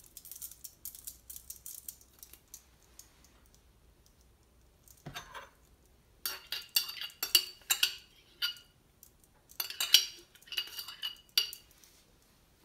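A metal spoon scraping and clinking inside a glass jar of pasta sauce as the sauce is spooned out, in quick clusters of sharp clinks that ring briefly. There is a single knock about five seconds in.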